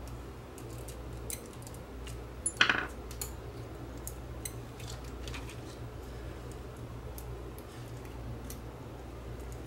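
Small plastic clicks and taps as the plastic projector head of a projection clock is handled and pried at, with one louder click about two and a half seconds in.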